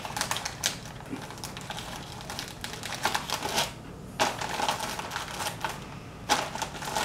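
Plastic cookie packaging crinkling and crackling as a hand reaches into the tray and handles the bag, in four short bunches of crackles.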